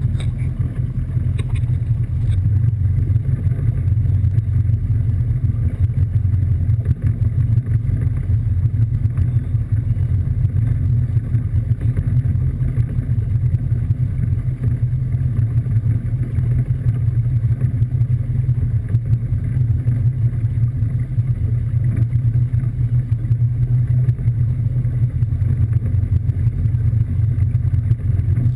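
Tow boat's engine running steadily at low speed, a deep, even drone close to the stern, while a wakeboarder waits in the water behind.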